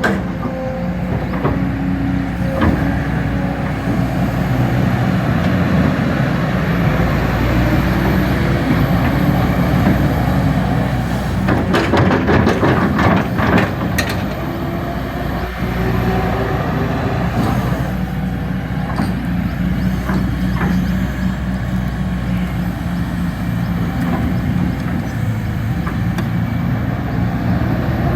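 Kobelco SK220 XDLC excavator's diesel engine running steadily. About twelve seconds in there are a couple of seconds of rapid knocking and rattling.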